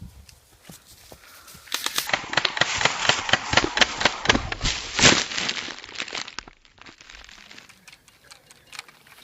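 Crinkling, crackling rustle lasting a few seconds, a dense run of small clicks loudest in the middle.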